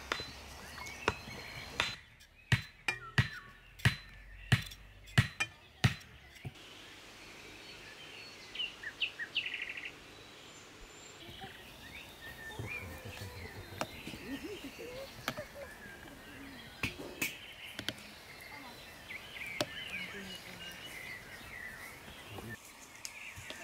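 Hammer blows driving a wooden stake into the ground: about eight sharp knocks over four seconds. Birds chirp afterwards.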